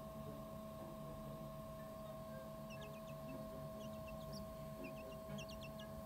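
Quail chick giving faint, high, short peeps in quick clusters from about halfway through, over a steady electrical hum.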